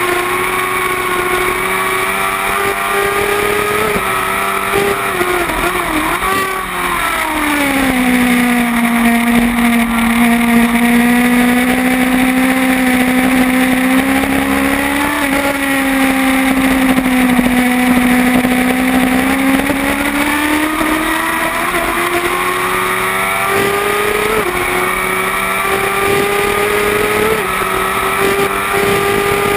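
Kawasaki ZX-10R inline-four racing motorcycle engine running on a race track, heard onboard. Its note drops about a quarter of the way through, holds lower and a little louder for several seconds, then climbs steadily again toward the end.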